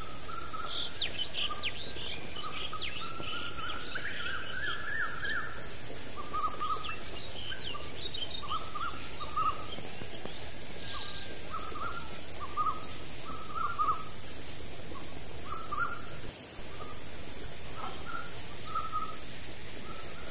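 Birds calling, with short chirping notes repeated one after another, over a steady high-pitched insect drone.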